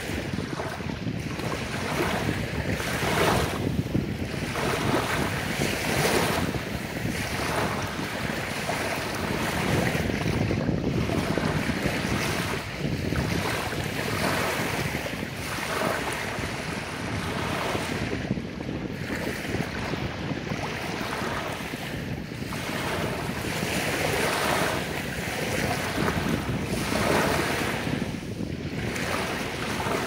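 Small, gentle sea waves lapping onto a sandy beach, each one washing in and drawing back, the wash swelling every few seconds.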